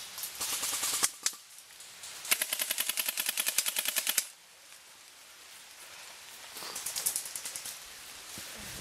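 Airsoft guns firing rapid full-auto bursts of plastic BBs: a short burst at the start, a longer burst of about two seconds from about two seconds in, and a fainter burst around seven seconds in.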